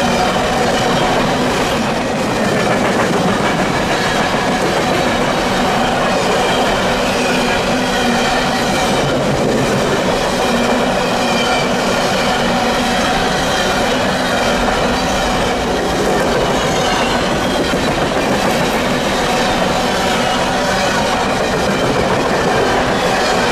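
Freight train of open-top hopper cars rolling past close by at speed: a steady loud rumble of steel wheels on rail with rhythmic clickety-clack from the car trucks. A faint high wheel squeal rides over it.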